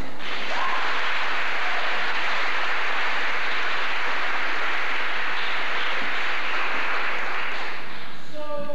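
Audience applauding steadily, beginning just as a song ends and dying away near the end.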